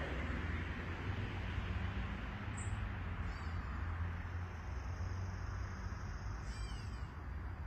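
Birds calling in a bamboo thicket: short, high chirps about three seconds in and again near the end, with a thin steady high note between them, over a steady low rumble.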